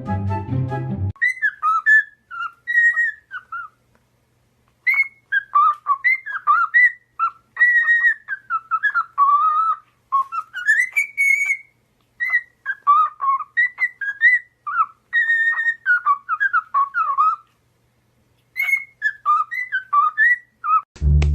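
A pet parrot whistling: a long string of short gliding whistles and chirps, in phrases broken by a few brief pauses.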